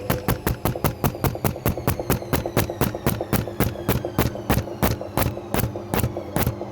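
Washing machine drum spinning with a fast, regular knocking each turn over a steady motor hum; the knocks slow from about six to about four a second as the spin winds down.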